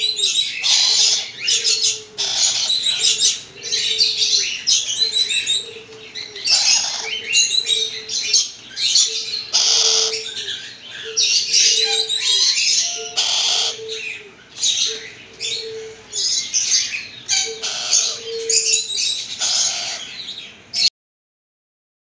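Black-capped lory chick calling over and over with harsh, raspy, high-pitched squawks: the begging calls of an unweaned parrot chick. The calls stop abruptly near the end.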